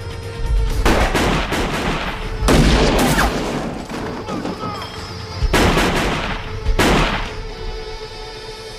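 Four bursts of rapid gunfire from a film soundtrack, over a low, steady music score.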